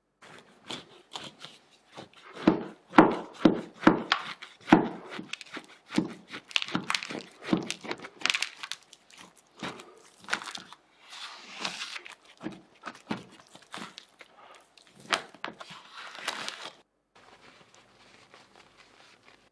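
A knife sawing through a giant burger's bun and patty in a cardboard box, and a wedge pulled away by hand: a run of crackling, crunching and crinkling, with several heavy thumps a few seconds in. It goes quiet a few seconds before the end.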